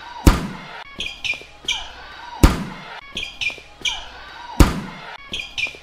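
Looping volleyball sound effects: a sharp, loud smack of the ball being struck, followed by a few short, high squeaks. The sequence repeats about every two seconds, three times.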